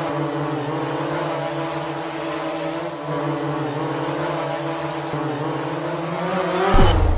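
Quadcopter drone's propellers humming steadily, a stack of tones that wavers slightly in pitch. Shortly before the end a sudden deep low boom comes in.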